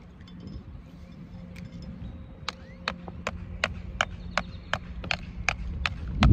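Baitcasting fishing reel clicking in an even rhythm, about three clicks a second, as line is cranked in, over a low steady hum. A brief low thump near the end.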